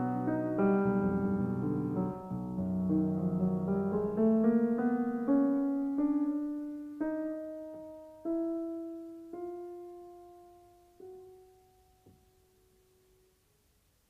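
Solo piano music winding down: full chords give way to single notes, struck further and further apart, each left to ring out and fade, until the playing stops near the end and only near silence remains.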